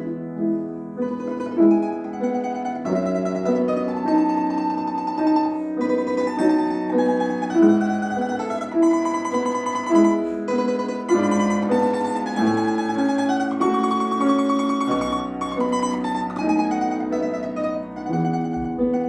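Classical music: a mandolin-type plucked string instrument playing a slow, lyrical melody over piano accompaniment.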